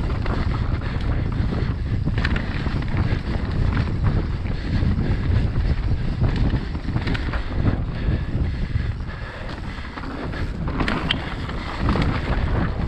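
Wind rushing over an action camera's microphone during a fast mountain-bike descent, with tyres rolling over dirt and the bike knocking and rattling over roots and bumps.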